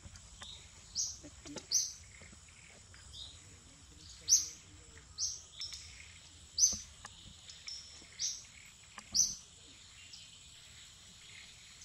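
A bird calling: about ten short, high chirps spaced roughly a second apart, some in quick pairs, over a faint steady high-pitched tone.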